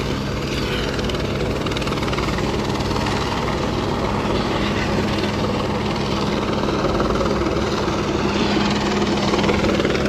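A steady engine drone, loud and unchanging, with the murmur of a crowd underneath.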